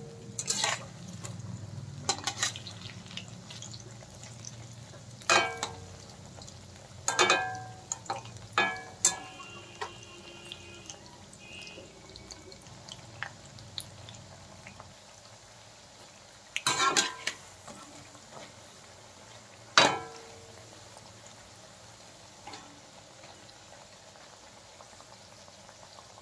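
Metal slotted spatula knocking and scraping against the kadai as spinach pakoras are turned in hot oil: about eight sharp clanks spread out, some ringing briefly, over the faint sizzle of the deep-frying. A low hum under it stops about halfway.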